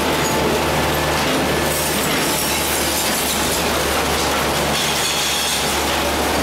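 A garbage truck unloading: its engine runs steadily while a load of mixed household rubbish, plastic bottles, bags and paper, slides and clatters out of the tipped body.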